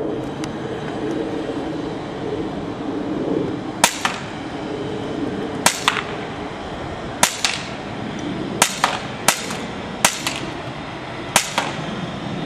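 RAP4 Desert Eagle .43 caliber CO2 paintball pistol firing seven single shots at uneven intervals, roughly one to two seconds apart. Each sharp crack is followed a split second later by a fainter second crack.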